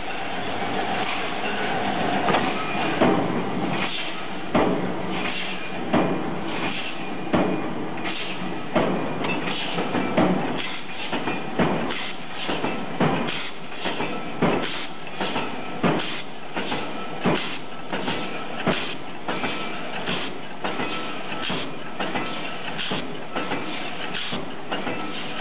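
Automatic production line for 1.5 L can top lids and ring caps running: steady machine noise with a regular clunk about every one and a half seconds.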